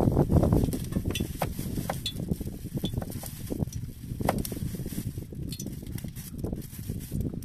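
A knife slicing sausage over its plastic wrapping: crinkling plastic and scattered small clicks and ticks from the blade and handling. A low rumble runs underneath, loudest in the first second.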